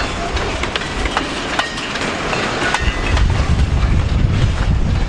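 Freight train boxcars rolling past: a steady rumble of steel wheels on rail with scattered clicks and clanks, the low rumble growing louder about three seconds in.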